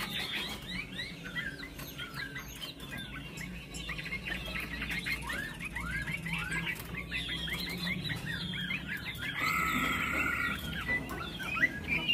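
Chinese hwamei (hoạ mi) songbird singing a fast, continuous run of varied whistled notes and slurs, with a longer held note about ten seconds in.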